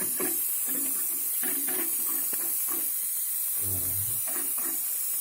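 Steady, high-pitched hiss of gas during refrigerator pipe brazing work, with faint voices underneath.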